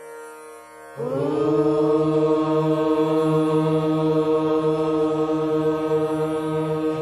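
A soft instrumental drone, then about a second in voices break in together on one long chanted note that slides briefly up into pitch and is held steady: a prayer mantra chanted in unison.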